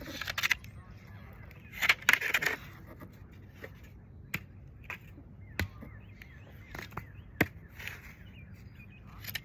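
Two short rustling scrapes, then a handful of sharp, separate knocks, with faint bird chirps in between.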